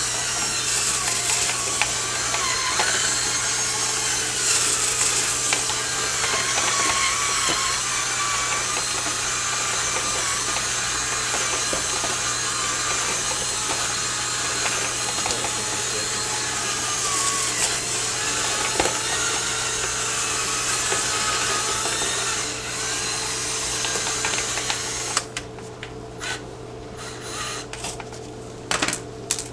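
Power drill running continuously, its pitch wavering as it works, as used to spin a rotary brush through a dryer vent duct. It stops about 25 seconds in, leaving a few scattered clicks and knocks.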